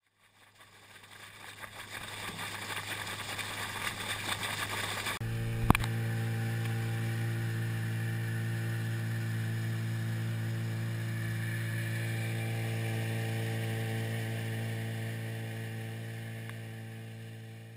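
Water rushing and splashing against a fast-moving aluminium skiff's hull, over the outboard motor. About five seconds in this changes abruptly to the steady drone of the outboard running at cruising speed, with one sharp knock just after. The drone fades out near the end.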